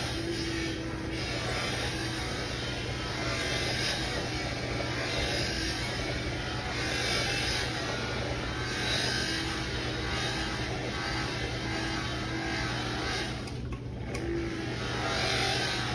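Bench buffing machine running, its motor humming steadily while a cloth buffing wheel rubs on a brass trombone part, making a hiss that swells and eases as the part is moved across the wheel. The rubbing briefly drops away near the end.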